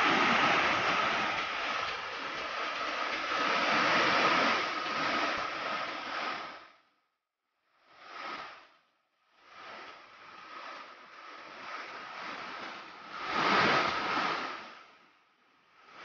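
Rushing mountain stream pouring over boulders in a steady hiss of whitewater, with a thin steady high tone under it. The sound cuts out abruptly about seven seconds in, then comes back fainter, with a brief swell near the end.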